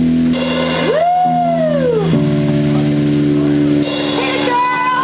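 A rock band playing live, with held low bass and guitar chords and cymbal crashes from a drum kit about a third of a second in and again near four seconds. A high note swoops up and back down about a second in.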